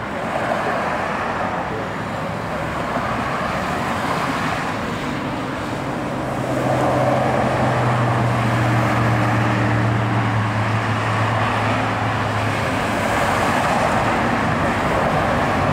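Road traffic passing close by, with a low steady hum from a passing vehicle through the middle, over the distant jet noise of a Boeing 787-8 touching down and slowing on the runway.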